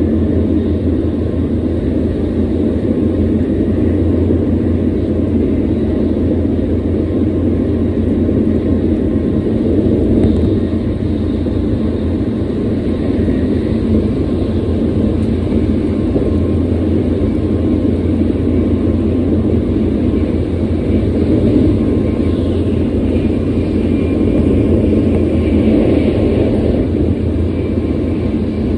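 An N700A-series Shinkansen running at high speed, heard inside the car through a phone pressed against the window glass: a steady, loud, low rumble.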